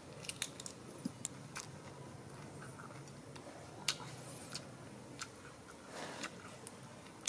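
Quiet eating sounds: a baby macaque biting and chewing a slice of watermelon, heard as scattered small sharp clicks and smacks over a faint low hum.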